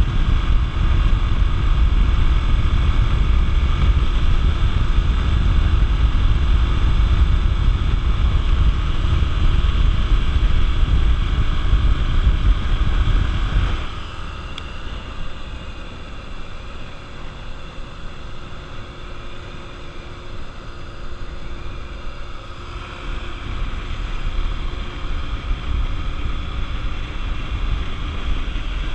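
Honda XR 250 Tornado single-cylinder motorcycle running on the move, with heavy wind rush on the microphone. About halfway through, the noise drops suddenly as the bike slows, then slowly builds again toward the end.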